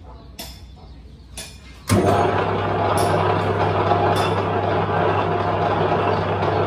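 Metal lathe started up: a few light clicks, then about two seconds in the spindle comes on abruptly and runs steadily, with a low motor hum, turning an irregular housing clamped in a four-jaw chuck.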